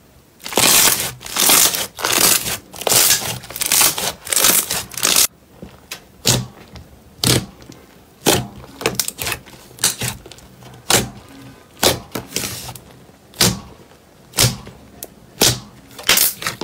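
Glossy green slime squished and poked by hand, making wet, sticky squelches. The first five seconds hold longer squelches in quick succession; after that come shorter, sharper squelches about once a second as fingers press into the slime.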